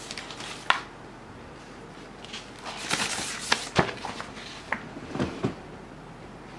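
Plastic sleeve of a sticker-paper pack crinkling and a paper sheet rustling as it is pulled out and handled, with a few sharp taps. The rustling is densest in the middle, about two to three and a half seconds in.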